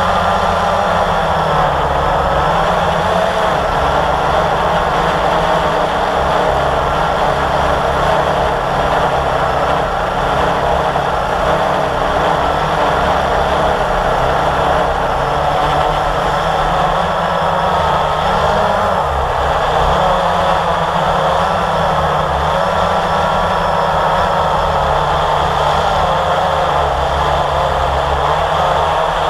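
Blade 350 QX quadcopter's electric motors and propellers running in flight, a steady hum whose pitch wavers up and down as the throttle changes, heard from the drone's own camera.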